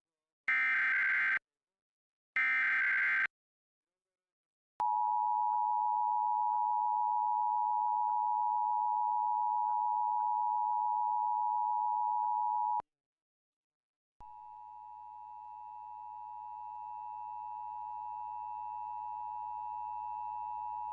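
Emergency Alert System test signalling. The last two of the SAME header data bursts come first, each about a second long, then the two-tone attention signal held steady for about eight seconds and cut off. After a short gap a second, fainter attention tone comes in over a low hum and slowly grows louder.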